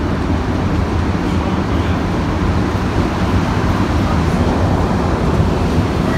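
Montreal Metro train running on its rubber tyres, heard from inside the passenger car: a steady, loud rumble of the running train with no breaks.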